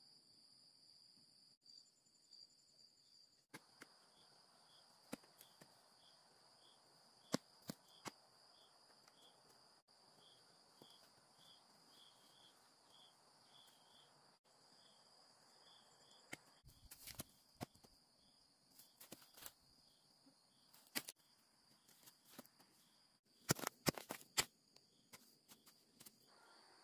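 Faint, steady insect trilling with a chirp repeating about twice a second. Scattered sharp knocks and rustles sit on top, with a burst of the loudest ones a few seconds before the end.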